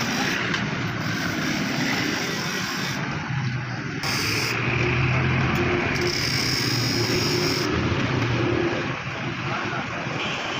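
Steady motor-traffic noise, with a vehicle engine humming close by for several seconds in the middle.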